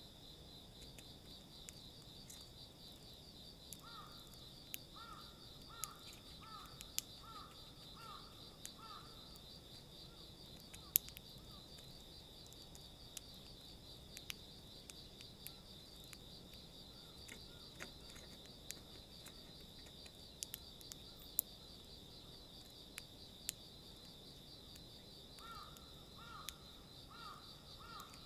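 Faint, steady, high-pitched insect chirring with a slight pulse. Over it come scattered sharp ticks of Eurasian tree sparrows' beaks pecking seed in a plastic feeder tray. A bird calls a run of about seven short, evenly spaced notes about four seconds in, and a few more near the end.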